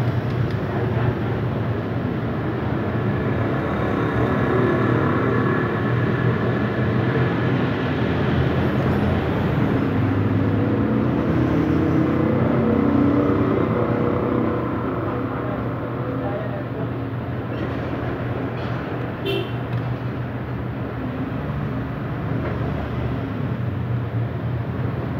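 Steady road-traffic noise: the continuous rumble and hum of passing vehicle engines, swelling a little in the first half, with one sharp click about three-quarters of the way through.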